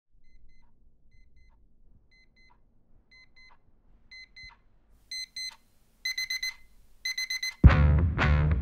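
Digital alarm clock beeping in short high pairs about once a second, growing louder and quicker until it sounds in fast bursts of four. About a second before the end, loud rock music with distorted electric guitar cuts in.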